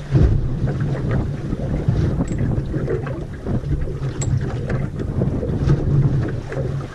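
Wind buffeting the microphone on a small aluminium boat at sea, with water lapping at the hull. A couple of short clicks come about two and four seconds in.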